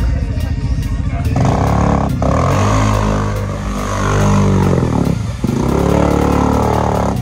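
ATV engine revving hard as the four-wheeler churns through a deep mud hole, its pitch rising and falling repeatedly from about a second and a half in.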